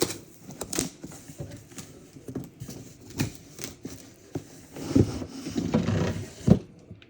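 Cardboard box and packing being handled during an unboxing: scattered knocks and taps, with a stretch of rustling from about five to six and a half seconds in.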